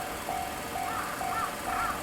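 Japanese railway level crossing's electronic warning bell ringing, about two evenly spaced dings a second. About a second in, a second, higher warning tone that rises and falls each beat joins it.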